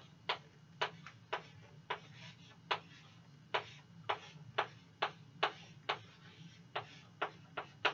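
Chalk tapping on a blackboard while writing: sharp, irregular clicks about two a second, one for each stroke.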